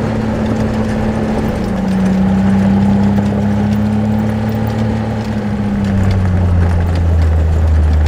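Gator utility vehicle's engine running as it drives along a gravel track, with the rush of tyres on gravel; the engine note drops lower about six seconds in.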